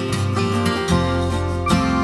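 Background music led by strummed acoustic guitar, with a bass part that grows stronger about a second in.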